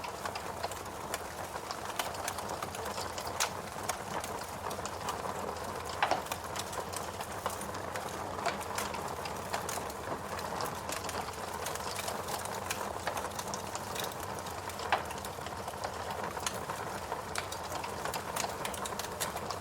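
Logs burning in a fireplace: a steady hiss with dense small crackles and occasional louder pops. The biggest pops come about six seconds in and again near fifteen seconds.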